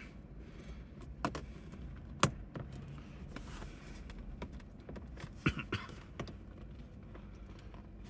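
Hands working the Lexus RC350's gear shift knob and boot while unscrewing the knob, giving about five sharp clicks and knocks, the loudest a little after two seconds in.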